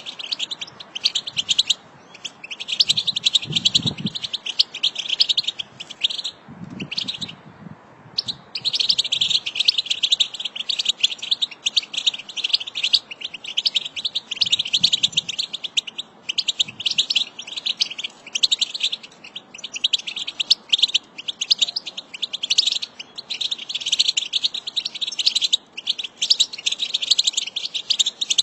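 A group of European goldfinches twittering and chattering: fast, dense, tinkling calls in bouts broken by short pauses, including a gap of about a second near 8 s. This is goldfinch chatter (batbata) of the kind played to stir caged goldfinches into song.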